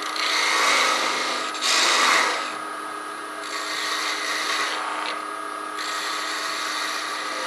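Wood lathe running with a steady hum while a parting tool cuts into the spinning wooden handle blank, a scraping hiss that surges twice in the first couple of seconds and then goes on more evenly.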